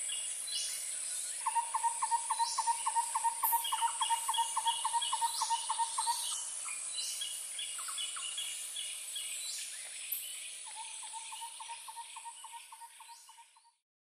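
Forest ambience of birds and insects: a steady high insect drone under bird calls, including two long runs of rapid repeated low notes at about five a second, higher chirping series and short sweeping calls. The sound fades out near the end.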